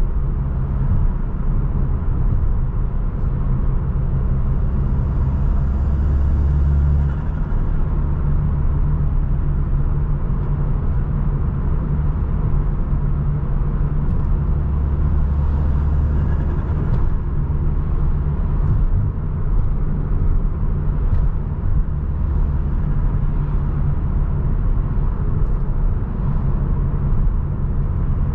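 Stage 2 tuned Audi S3 8V's turbocharged 2.0-litre four-cylinder, with aftermarket intake and downpipe, running at a steady cruise: a low engine drone under road noise. The drone swells twice, about five and fifteen seconds in, with a faint hiss above it.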